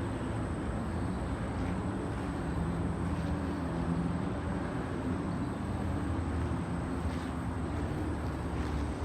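Steady low rumble with a wavering hum, like a running engine, unchanging throughout.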